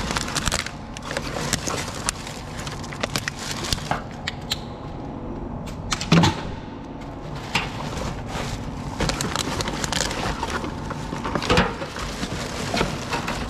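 Rubbish being rummaged through by hand in a metal drum: cardboard, plastic packaging and small metal items rustling and clattering, with scattered knocks and a louder knock about six seconds in.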